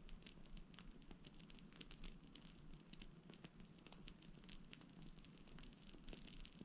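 Faint, irregular crackling and popping of a small burning fire.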